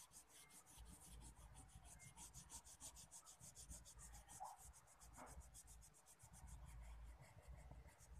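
Wax crayon scribbling on paper, rubbed back and forth in rapid, even strokes to fill in a colouring-book picture. It is faint.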